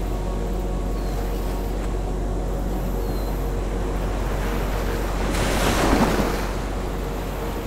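Surf washing on a beach, with one wave rushing in louder about five to six seconds in.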